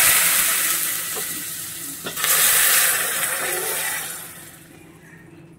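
Hot water poured into semolina just roasted in hot ghee in a steel kadai, hissing and sizzling as steam bursts up. A second surge of hissing comes about two seconds in, then it dies away.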